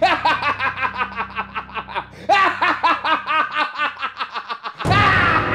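A man laughing loudly in fast, repeated ha-ha-ha syllables, about seven a second, in two long runs with a short breath between. Near the end a loud, sudden burst of noise cuts in.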